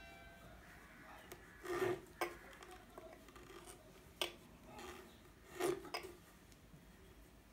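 Scissors snipping and clicking several separate times on the cutting table, the loudest snip about two seconds in.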